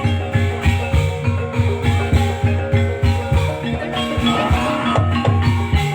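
Banyumasan gamelan music accompanying an ebeg dance: mallet-struck keyed instruments playing ringing notes over a steady drum beat of about three strokes a second.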